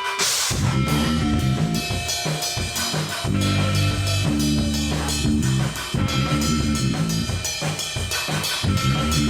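Outro music with a drum kit beat, bass and guitar.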